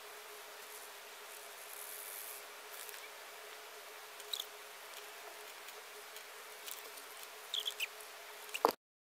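Pen scratching on sketch paper in short strokes over a steady hiss and faint hum, with a few sharp ticks; a loud click near the end, then the sound cuts out.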